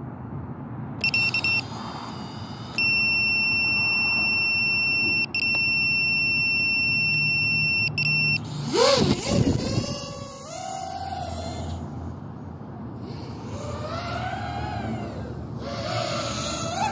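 A short electronic beep, then a steady high-pitched beep for about five seconds. Then the DJI FPV drone's motors spin up and it lifts off, the propeller whine rising and falling in pitch.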